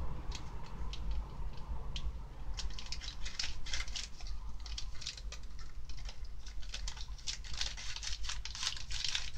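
Crinkling and rustling of a small powder packet from a Popin' Cookin' candy-cake kit being handled and torn open by hand: a run of quick crackles that gets busier after about two and a half seconds, over a low steady hum.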